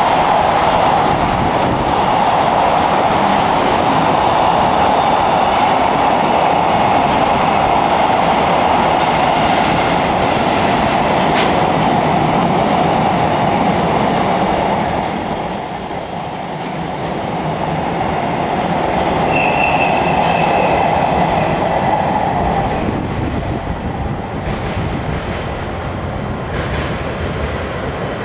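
Container wagons of a freight train rolling past at speed: a steady rush of wheels on rail with one sharp clank. Partway through, a high wheel squeal rings for several seconds. The noise then fades as the last wagon passes and the train draws away.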